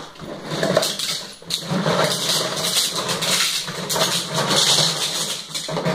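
Small die-cast toy cars rattling and clattering against each other and a plastic jar as the jar is shaken and tipped out, a dense, continuous jumble of clicks.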